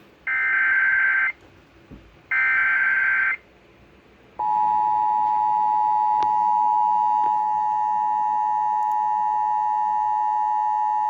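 Emergency Alert System broadcast tones over radio: two short, loud, screeching bursts of SAME header data, then a little over a second later the steady two-note EAS attention signal starts and holds. The tones announce a National Weather Service severe thunderstorm warning.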